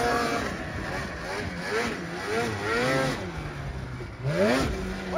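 Snowmobile engine revving up and down again and again as the sled crosses the slope and hits an off-camber jump, climbing steeply in revs about four seconds in.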